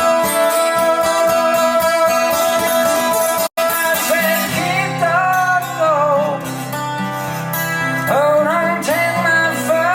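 Guitar-led song played back through a KEF LS50 bookshelf speaker. The sound drops out for an instant about three and a half seconds in, after which a gliding lead melody comes in over a held bass.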